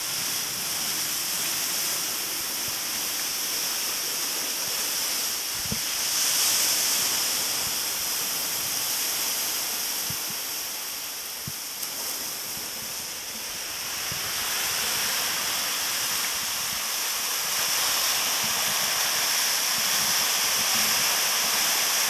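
Steady rush of surf breaking on a rocky shore, growing louder in the second half, with a steady high hiss over it.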